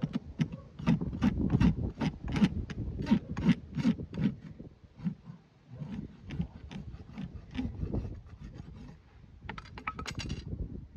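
Farrier's rasp filing the outer wall of a horse's hoof resting on a hoof stand, in repeated scraping strokes about two a second, lighter after about five seconds.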